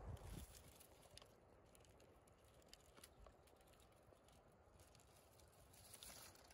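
Near silence: a faint outdoor hiss with a few scattered soft ticks.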